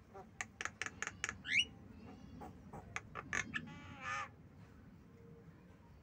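Javan myna calling: a quick run of sharp chattering notes, a short rising whistle, more sharp notes, then a longer harsh call about four seconds in.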